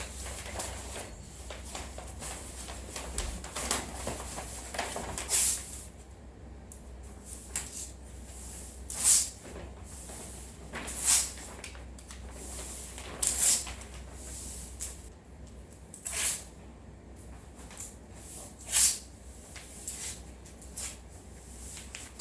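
Short hissing swishes, one every two to three seconds or so, over a steady low hum.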